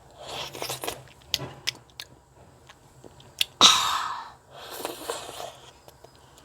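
Close-up chewing and mouth noises of a child eating a foldable candy: wet clicks and lip smacks between breathy bursts, the loudest burst a little past the middle.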